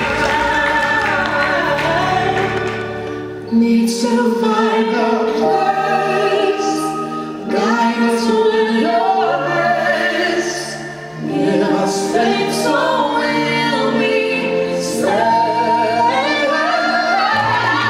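Gospel song: voices singing a melody over an instrumental backing with a bass line.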